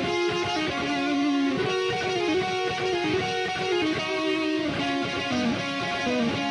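Instrumental stoner doom metal: an electric guitar playing a slow melodic line of single picked notes, with no drums.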